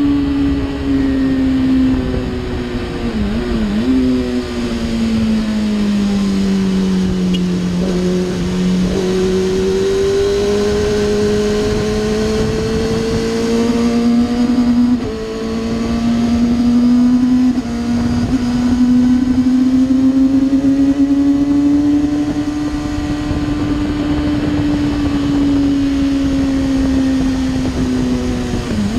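2007 Kawasaki ZX-6R inline-four with an Akrapovic Evolution exhaust, heard from on the bike while lapping a track. The engine note falls for the first several seconds, then climbs steadily and holds high, with a brief drop in level about halfway. Wind noise runs underneath.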